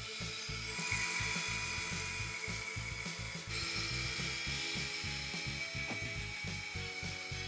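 Small coaxial toy RC helicopter hovering, its electric motors and twin rotors whirring steadily, over light background music.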